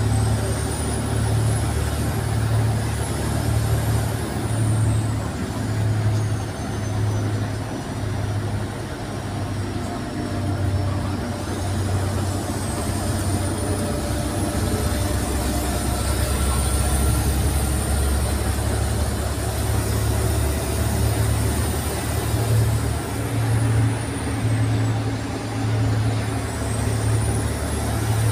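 Wright Eclipse SchoolRun bus heard from inside near the back while driving. Its engine and road noise make a steady drone with a low hum that throbs about once a second, and a faint high whine slowly rises and falls.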